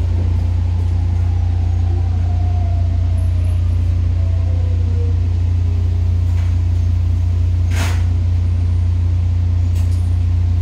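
Running sound inside a JR Kyushu 819 series DENCHA battery-electric train: a steady low drone and rumble. The traction motor's whine falls in pitch over the first five seconds as the train slows, and there is one sharp click about eight seconds in.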